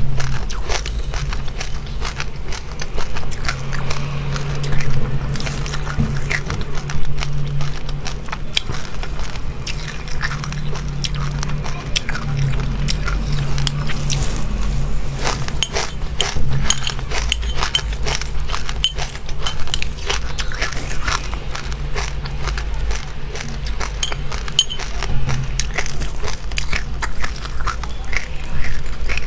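Close-up chewing of dry chilli seeds and buckwheat: a continuous run of small, sharp crunches and crackles. A steady low hum lies underneath.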